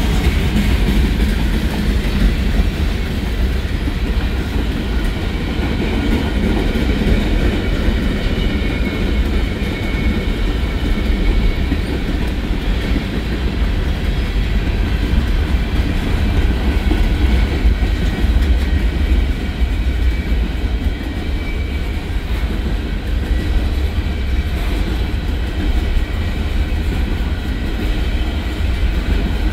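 Manifest freight train's cars rolling past: a steady rumble of steel wheels on rail with clickety-clack over the rail joints.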